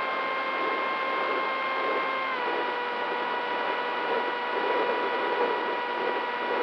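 Brushless electric motor and 6x4 propeller of an FPV flying wing (DYS Fire 2206 2300KV) whining steadily over a rush of air noise, heard from the onboard camera. The pitch drops a little about two seconds in as the motor slows.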